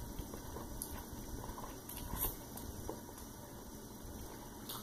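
Black bean noodles being slurped and chewed: soft, quiet wet mouth sounds with a few faint clicks.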